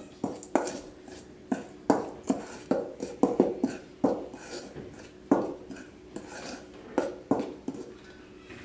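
Metal spoon tapping and scraping against a stainless steel mixing bowl as dry flour and salt are stirred together for dough. The strokes come irregularly, in quick runs with pauses, and the bowl rings faintly after some of them.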